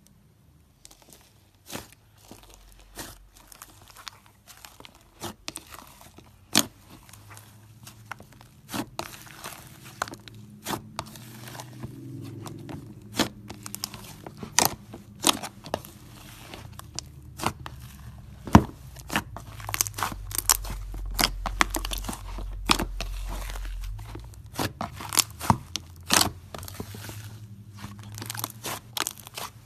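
Red slime mixed with tiny polymer-clay fruit slices being kneaded, folded and squeezed by hand. It crackles and pops with many irregular sharp clicks over a soft squelching, and grows louder as the handling picks up.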